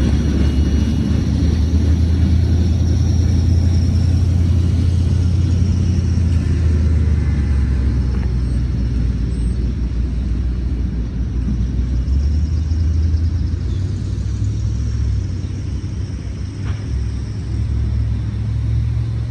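Low, steady rumble of a freight train of open hoppers and gondolas rolling away down the track after its last car has passed, easing slightly in the second half.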